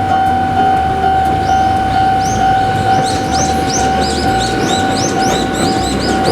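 Japanese level-crossing warning bell ringing its steady electronic "kan-kan", about two strokes a second, with birds chirping over it.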